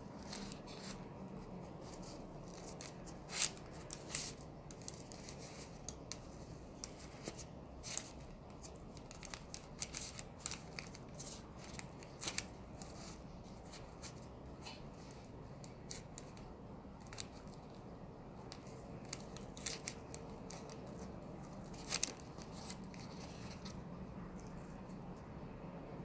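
Scattered sharp clicks and crackles as a hand presses and pulls apart baked cinnamon rolls on a tray lined with baking paper, with the crisp tops and the paper crackling under the fingers. The loudest snaps come about three seconds in and again near the end.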